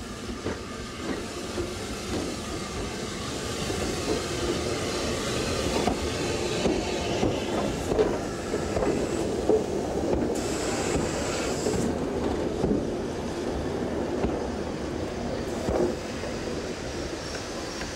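A steam-hauled passenger train rolling past close by: S15 class 4-6-0 No. 30506, its tender and coaches, with steady wheel-and-rail noise and clicking over rail joints. A brief high squeal comes about ten seconds in.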